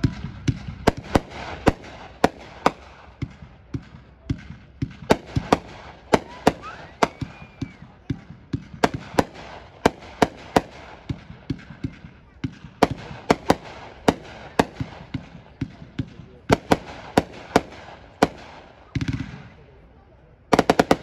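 Dominator "Out Cold" 500 gram consumer fireworks cake firing: an irregular run of sharp bangs, about two a second. Near the end come a lower boom and then a quick cluster of cracks.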